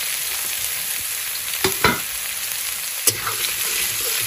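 Sliced onions sizzling steadily in hot oil in a metal kadai while a metal spatula stirs them, knocking against the pan a few times around two and three seconds in.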